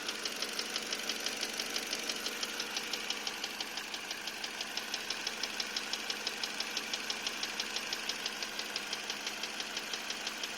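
Car engine idling with a steady, rhythmic knock, about six or seven knocks a second, which the owner suspects is the fourth cylinder's piston slapping or a worn piston pin.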